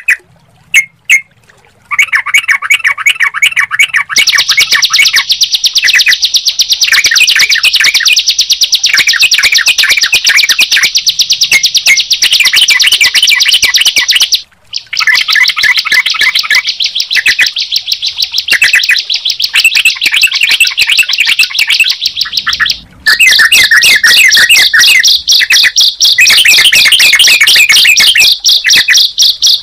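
A ciblek (bar-winged prinia) and a trucukan (yellow-vented bulbul) singing together: a fast, unbroken high trill with rapid chirping notes running through it. It starts with a few separate chirps, and the song breaks off briefly twice, about halfway and about three-quarters through.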